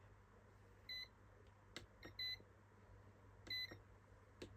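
Three short, faint electronic beeps from the Hubsan H501S drone's electronics, about one every 1.3 seconds, with a faint click or two between them. They come while the drone searches for GPS satellites and finds none.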